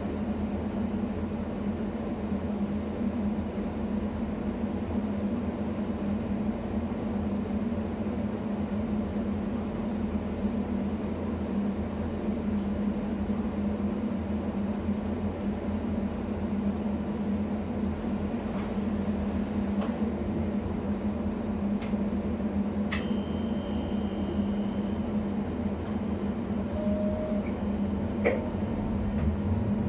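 A standing ČD class 640 RegioPanter electric multiple unit humming steadily. A high whine joins about two-thirds of the way through, and near the end a rising whine begins as the traction drive starts to pull the train away.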